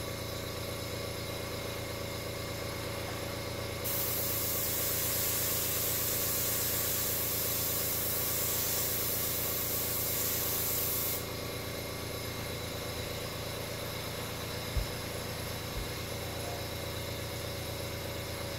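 An airbrush hisses for about seven seconds, starting about four seconds in as the trigger is pulled, over the steady hum of a running air compressor. Two soft knocks come near the end.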